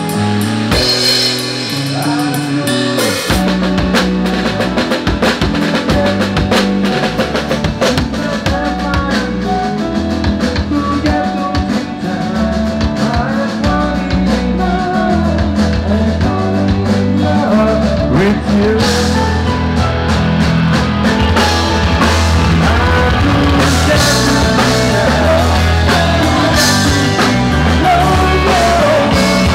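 Rock band playing live: drum kit, bass and singing over a full band mix.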